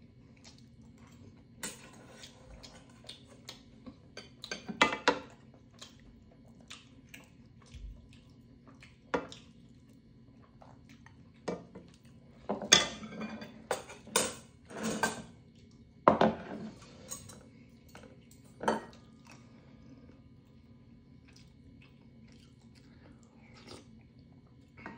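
Metal chopsticks and a spoon clinking and scraping against a stainless pot and bowl while eating stew, with a ladle dipped into the pot. Scattered light clinks, with louder clusters about five seconds in and again from about twelve to nineteen seconds.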